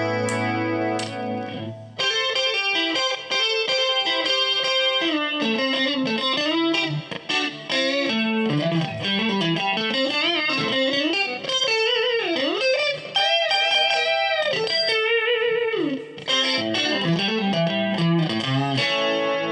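1985 Matsumoku-built Westone electric guitar played with a clean tone. A chord rings out and fades, then a run of single-note lead lines with string bends and vibrato follows.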